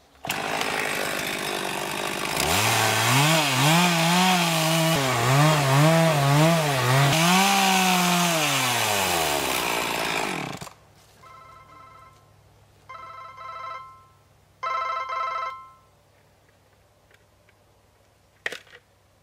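Chainsaw making the back cut in a tree trunk: it revs up, its engine pitch wavering under load, then winds down and stops about ten seconds in. A phone ringtone then sounds in three short bursts, and there is a single click near the end.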